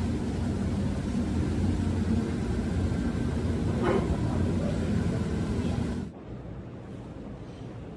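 Walk-through disinfection booth's fan and sprayer running with a steady hum. It cuts off suddenly about six seconds in, leaving quieter room tone.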